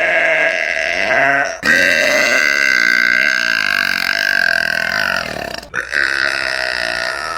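A woman burping: three long, loud burps one after another, with sudden cuts between them. The middle one lasts about four seconds.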